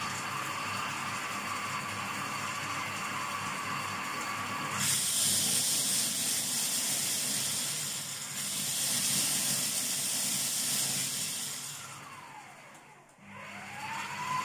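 Electric food processor motor running steadily with a whine while it beats eggs for a sponge cake. About five seconds in, a loud hiss joins and lasts about seven seconds. Near the end the motor winds down almost to a stop, then spins back up with a rising whine.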